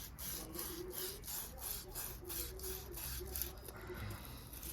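Sandpaper rubbed by hand over the armature of a Honda front wiper motor in quick back-and-forth strokes, about three a second, scouring grime off the armature so that it comes up shiny.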